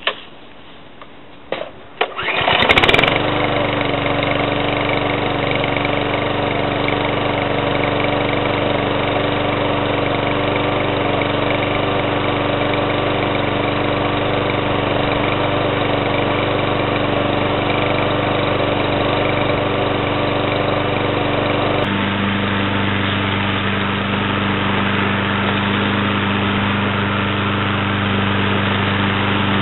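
Ariens BRSP21 lawn mower's Kohler Courage 173cc single-cylinder engine pull-started cold: a few pulls on the recoil starter, and it catches about two seconds in, then runs steadily. About 22 seconds in its note drops to a lower, steady pitch.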